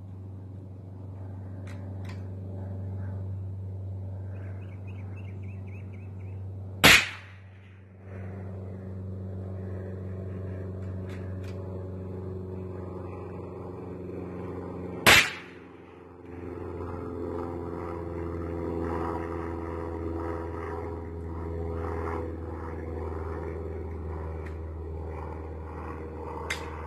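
Two shots from a Rossi RS22 .22 rimfire semi-automatic rifle, about eight seconds apart, over a steady low hum.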